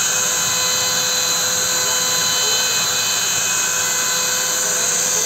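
CNC router spindle running with a steady high whine while its small engraving bit cuts into a slab of hardwood, over a dense hiss.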